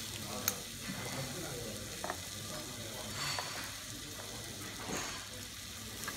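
A steady sizzling hiss, with several sharp clinks of a metal serving spoon and fork against ceramic plates as slices of grilled steak are served.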